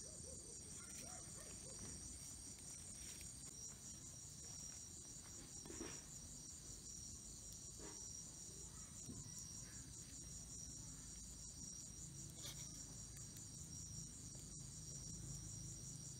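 Night insects, crickets, chirring steadily in a high, pulsing drone, with a few faint clicks from handling close by.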